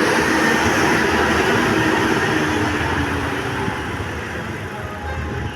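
A large bus passing close by, its engine and tyre noise slowly fading as it moves away.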